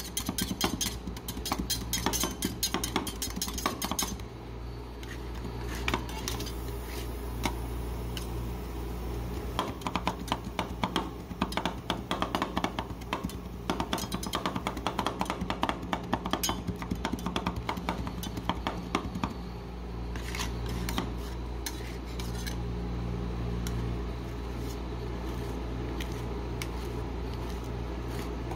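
Two metal spatulas rapidly chopping and tapping on a steel rolled-ice-cream cold plate, mashing chocolate-covered pretzels into the freezing ice cream base, in fast runs of sharp metal taps with a few short pauses. Toward the end the taps thin out as a spatula scrapes, spreading the mix flat. A steady low hum runs underneath.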